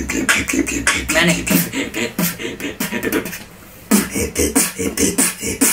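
Beatboxing with inward bass: a fast run of mouth-made drum sounds over a deep inhaled bass, breaking off briefly about three and a half seconds in, then starting again.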